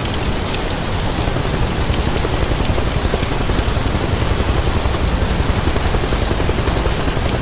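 A vehicle engine running steadily, with a fine crackle over it.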